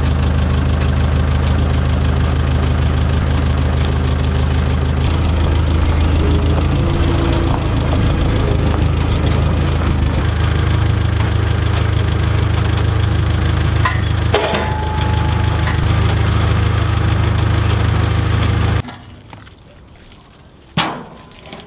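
Forklift engine running steadily while logs are moved, its pitch shifting a few times, then stopping abruptly near the end; a clank about two-thirds of the way through and a couple of faint knocks after the engine stops.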